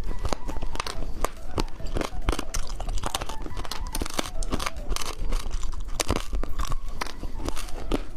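Close-up crunching and chewing of candy: a dense, irregular run of crisp cracks and bites.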